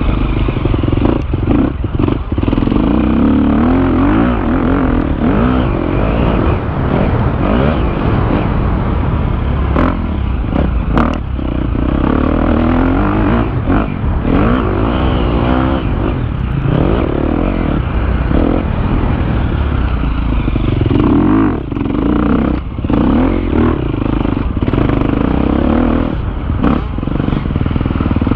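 KTM 250 motocross bike's engine, heard from on board, revving hard with the pitch rising and falling as it is ridden round a dirt track. The engine sound breaks off briefly several times as the throttle is shut, and there are knocks and clatter from the bike.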